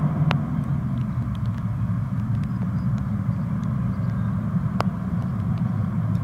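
Bombardier Dash 8 Q400's twin turboprop engines and propellers at high power, a loud steady low drone, as the airliner starts its take-off roll.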